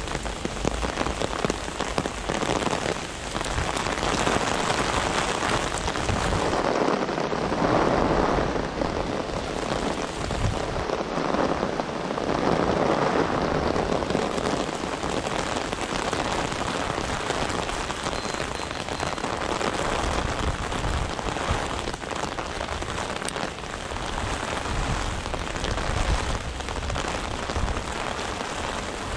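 Heavy rain pouring down, swelling louder a couple of times.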